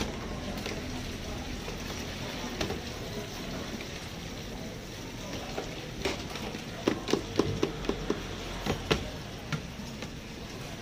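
Plastic container and basins handled at a stainless steel sink: a quick run of light knocks and clatter in the second half, over a steady background hiss.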